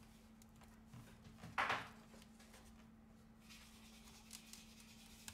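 Quiet handling of a Samsung Galaxy Tab S2's parts as its rear housing comes away from the frame: a short scrape about one and a half seconds in, then a few light clicks, over a steady faint hum.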